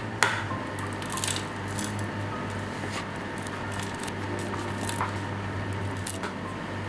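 Light clicks and taps of a metal spoon against a plastic tub as crumble is scooped and sprinkled onto cupcakes, with a sharp click just after the start, over a steady low hum.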